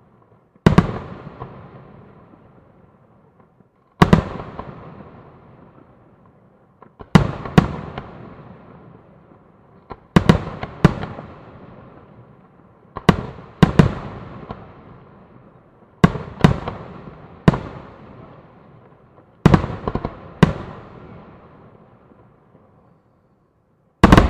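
Fireworks display: aerial shells bursting with sharp, loud bangs, often in pairs, every three seconds or so, each bang trailing off in a fading rumble.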